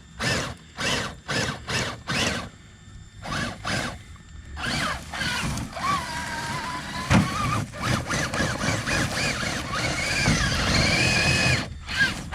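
Axial SCX6 RC crawler's Spektrum sensored brushless motor and drivetrain whining in about six short throttle blips, then running longer with a whine that rises and falls in pitch as the truck works over rocks.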